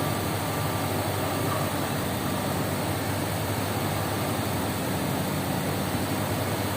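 Car engine idling steadily after a successful jump start from a portable jump starter, its battery having been too flat to start it.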